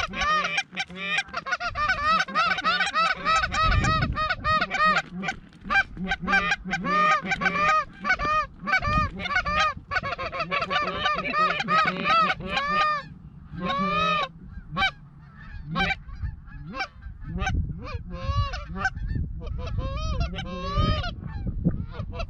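Canada goose calls blown in a fast, overlapping run of honks and clucks, calling to geese in the air; the calling is dense for about the first half, then thins to more spaced honks.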